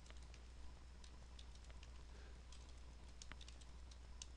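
Faint computer keyboard typing: scattered, irregular key clicks over a low steady hum.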